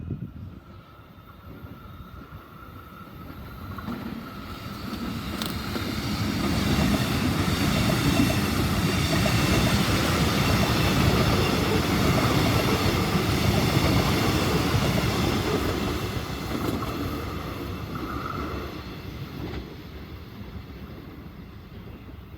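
An X'Trapolis electric multiple-unit train on the move, its wheels rumbling under a steady whine. It grows louder over the first few seconds, stays loud for about ten seconds, then fades.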